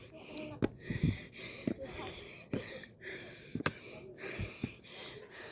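Heavy, fast breathing in and out from the exertion of climbing a long stairway, with short thuds or knocks every second or so.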